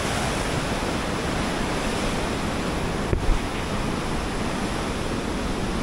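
Steady rush of water pouring through the open gates of a canal head regulator and churning in white water below. A brief low thump about three seconds in.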